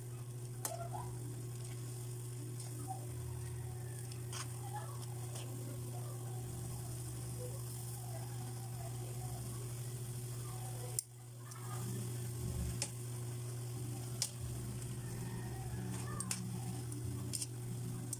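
Rice noodles being tossed with metal tongs in an aluminium wok of bubbling broth: a steady sizzle, with a few sharp clicks of the tongs against the wok. A steady low hum runs underneath.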